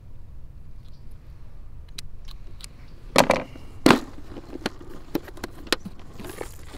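Clear plastic tackle box being handled: two loud plastic knocks about three seconds in, then a string of sharp clicks as its latches are snapped open.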